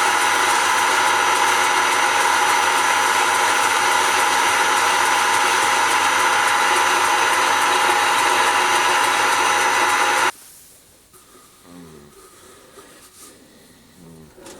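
Wood-turning lathe running while a homemade parting chisel, made from an old file, cuts into the spinning wood: a loud, steady noise with several fixed tones. It stops suddenly about ten seconds in.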